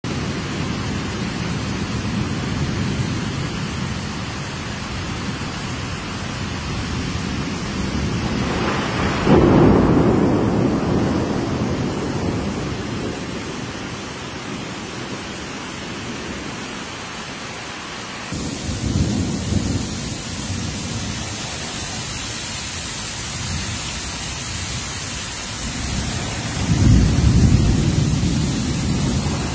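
Heavy tropical monsoon rain pouring down steadily, with rumbles of thunder: a loud one breaks about nine seconds in and fades over several seconds, a smaller one comes near the middle, and another loud one near the end.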